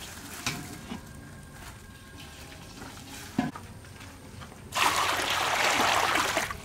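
Water poured from a stainless steel bowl into a large wok, splashing loudly for under two seconds near the end. A single sharp knock comes shortly before.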